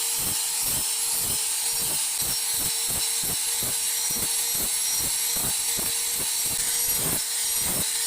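Electric grinder running against steel: a steady hiss with a constant hum under it and a regular knock about three times a second.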